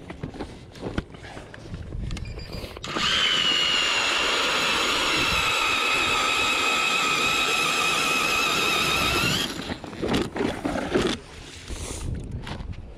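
Battery-powered StrikeMaster ice auger drilling a hole through lake ice: a steady electric motor whine that starts about three seconds in, runs for about six and a half seconds, and rises slightly in pitch just before it cuts off. A few knocks and handling noises come before and after it.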